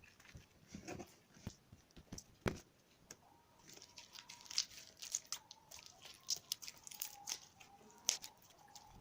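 Handmade-feel slime, softened with hand cream, being kneaded and stretched by hand: quiet, irregular sticky clicks and crackles, thickening after a few seconds.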